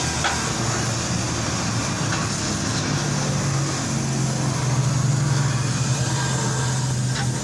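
Arc welding on a car's exhaust pipe near the silencer: a steady low hum under a continuous hiss, the hum growing stronger about three seconds in.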